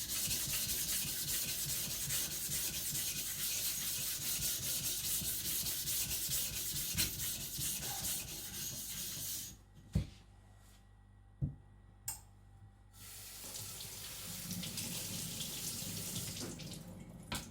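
A water stone being rubbed back and forth on an Atoma 140 diamond flattening plate: a continuous wet, gritty scraping, flattening the stone. It stops a little past halfway, a few sharp clicks follow, then the scraping starts again.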